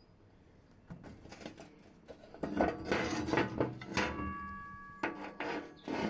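Steel crucible and tools clanking and scraping against each other, with sharp knocks. About four seconds in, a brief metallic ring sounds after a knock.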